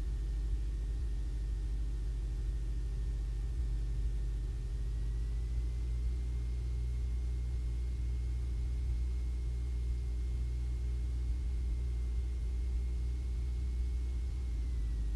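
Cessna 150's four-cylinder Continental O-200 engine running steadily on final approach, a low drone heard in the cabin, with a faint thin whistle that rises slightly about five seconds in and drops again near the end.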